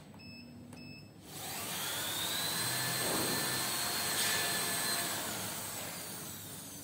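Two short electronic beeps, then a motor on a CNC vibrating-knife cutting machine starts up with a rushing noise and a whine that rises in pitch. It runs for about four seconds and winds down near the end.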